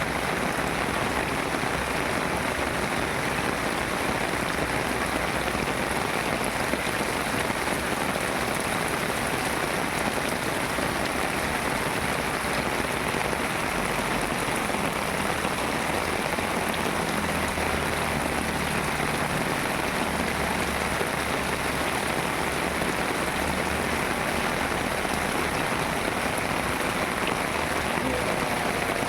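Steady heavy rain falling and pattering on surfaces, an even dense hiss with no let-up.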